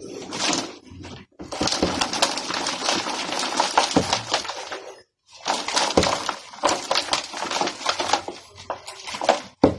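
Loam soil and small stones being shaken through a plastic crate used as a sieve over a plastic basin: a dense rattling, scraping clatter in two long stretches, with a short break about five seconds in.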